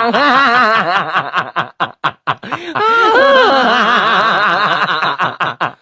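A person laughing in quick, repeated bursts, in two bouts with a short break about two seconds in.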